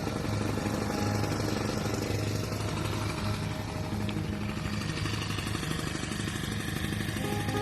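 Small petrol engine of a grass mower running steadily at working speed.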